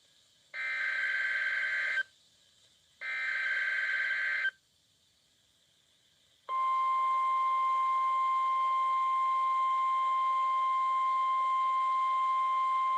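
NOAA Weather Radio SAME (Specific Area Message Encoding) header being sent as part of the Required Weekly Test: two short bursts of warbling data tones, each about a second and a half long. After a gap of about two seconds, the steady 1050 Hz weather radio alert tone begins about six and a half seconds in and holds without change.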